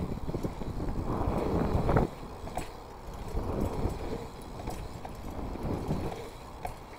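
Wind rushing over the microphone of a camera riding a BMX bike, with the rumble of knobby tyres on packed dirt and small knocks and rattles from the bike. It is louder for the first couple of seconds, then drops sharply.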